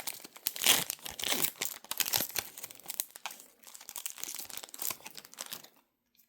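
Foil Pokémon booster pack wrapper crinkling and tearing as it is opened, a rapid run of crackles that stops suddenly near the end.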